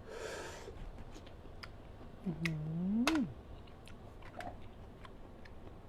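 Small sharp clicks of blood cockle shells being handled and pried open while eating, with a short rising vocal hum a little over two seconds in.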